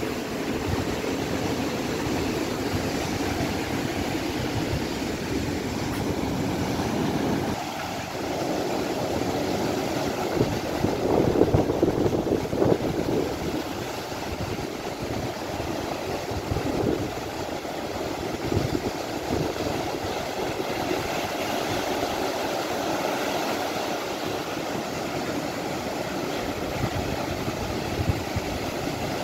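Steady roar of ocean surf breaking on the beach, mixed with wind rumbling on the microphone, swelling louder for a couple of seconds near the middle.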